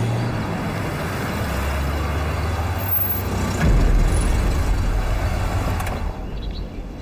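Engine of a 1940s-style canvas-topped army truck running as it drives up a dirt track and pulls to a stop. The low rumble grows louder a little past halfway and dies down near the end.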